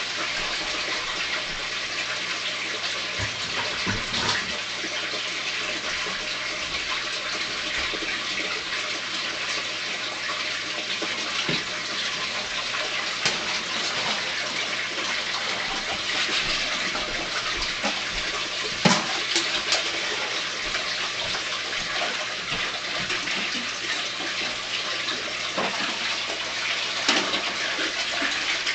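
Aquarium filter return pouring hard into the tank, a steady rush of splashing, churning water. A few short knocks come through it, the clearest about two-thirds of the way in.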